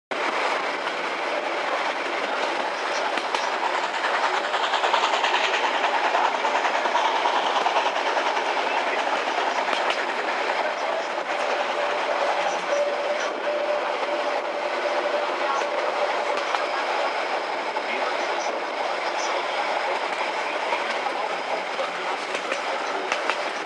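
Metre-gauge Brocken steam railway train running along the line, heard from on board: a steady rolling rumble of wheels on rail with occasional faint clicks, and a thin steady squeal for a few seconds in the middle.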